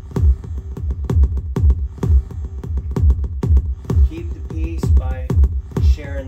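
Electronic dance music with a steady kick drum about two beats a second over deep bass; a wavering pitched line comes in about four seconds in.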